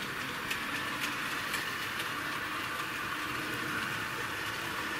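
Small model railway 0-4-0 tank locomotive with a can motor, pulling three coaches along the track in reverse: a steady, fairly quiet whirr of the motor and wheels with light clicks every half second or so.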